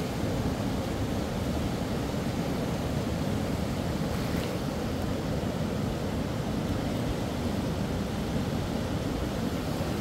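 Steady rush of running river water, an even noise without breaks or distinct events.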